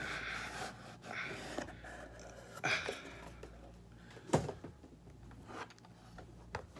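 Cardboard box and plastic bag rustling as a stack of hard plastic graded-card slabs is handled. About four seconds in there is one sharp click as the hard plastic cases knock together.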